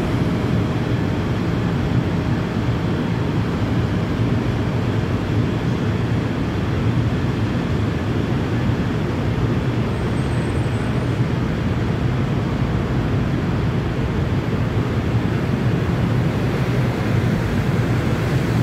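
NJ Transit double-deck passenger train rolling past along a station platform: a steady rumble of the cars and wheels, mostly low in pitch.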